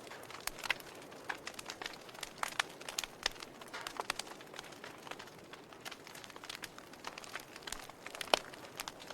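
Logs burning in a fireplace, crackling with irregular sharp pops over a faint steady hiss, the loudest pop a little before the end.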